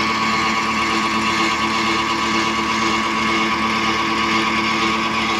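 Tractor engine running steadily at an even pitch, working to pull its trolley stuck in mud.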